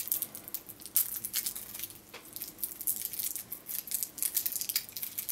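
Batteries and their plastic wrapping handled by hand: an irregular run of small, sharp crinkles, clicks and taps as the batteries are freed and readied for a multimeter's battery compartment.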